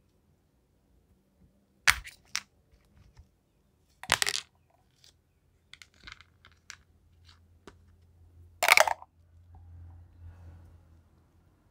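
Small, hard, multicoloured pieces coated in clear slime clacking against each other and the plastic plate as fingers push them around. There are a few sharp clatters, the loudest near the end, with lighter single clicks between them.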